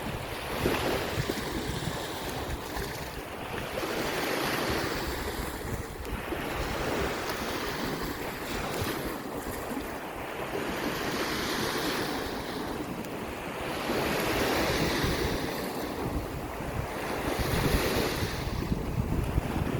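Waves on Chesapeake Bay washing onto the shore, each surge swelling and fading every three to four seconds. Wind buffets the microphone, adding a low rumble.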